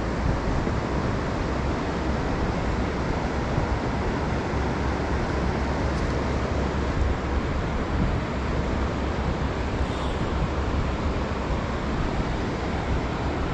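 Steady rush of river current, an even, unbroken water noise with a strong low rumble.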